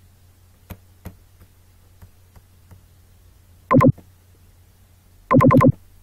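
A few faint clicks, then two loud electronic buzzing tones: a short one, and a longer one near the end that pulses several times.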